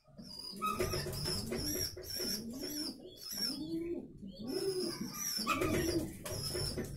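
Domestic pigeons cooing, a run of repeated low rising-and-falling coos, with faint high chirps over them.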